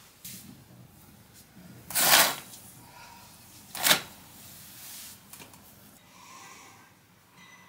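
Two sharp knocks about two seconds apart, the first slightly longer, with faint rustling handling sounds around them.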